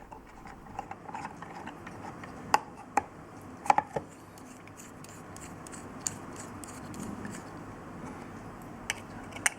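Bergeon 30211 metal movement holder being handled and adjusted, its jaws closing on a watch movement in a plastic case: irregular small clicks and taps, a few seconds apart, the loudest about three to four seconds in.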